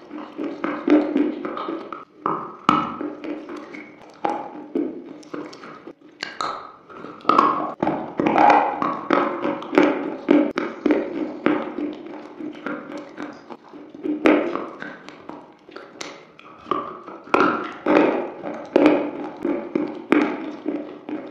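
Close-miked biting and chewing of slate: a continuous, irregular run of sharp crunches.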